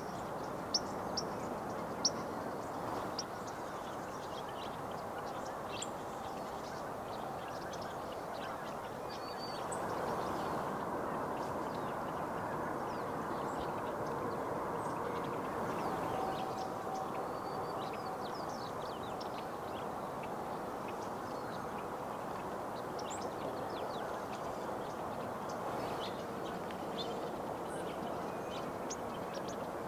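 Small birds chirping, short high calls scattered throughout, over a steady background hiss. A few sharp clicks come in the first two seconds.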